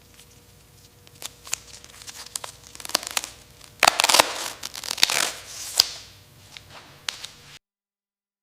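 Irregular crackling and rustling, with scattered sharp clicks and two denser bursts around the middle, over a faint steady hum; it cuts off abruptly near the end.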